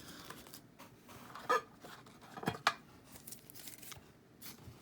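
Sleeved trading cards being handled and flipped through by hand: soft plastic rustling with a few short sharp clicks.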